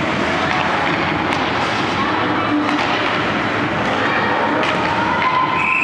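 Ice hockey play: skates scraping the ice and the sharp clacks of sticks and puck over a steady din of voices. A referee's whistle starts blowing near the end, stopping play.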